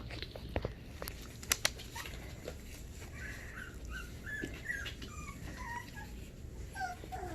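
Havanese puppies whimpering softly in short, high-pitched squeaks, with a few light clicks about one and a half seconds in.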